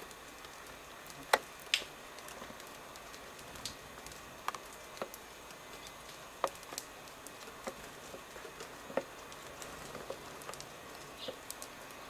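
Scattered light taps and clicks at irregular intervals, about a dozen, with two sharper ones in the first two seconds and another a little past the midpoint.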